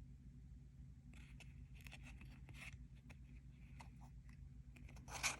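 Trading cards being handled and slid against one another, making faint scratchy rustles that begin about a second in, with a slightly louder one near the end, over a steady low hum.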